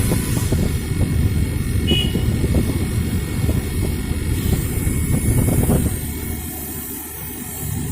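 Window air conditioner running, its compressor and fan giving a steady low drone after being recharged with R22 refrigerant. The drone eases slightly near the end.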